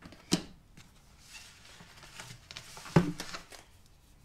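Kit parts being handled on a workbench: a sharp tap as a small item is set down, a soft rustle, then a knock about three seconds in followed by brief rustling as a rolled sheet of protective film is slid out of its packaging tube.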